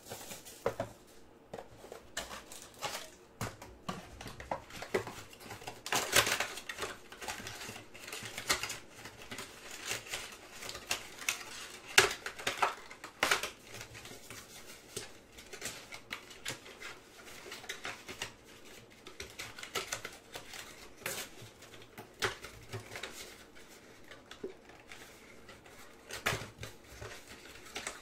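Hands opening foil trading-card packs and handling the cards: irregular rustling, crinkling of wrappers and small clicks of cards against each other and the table, with a few sharper clicks.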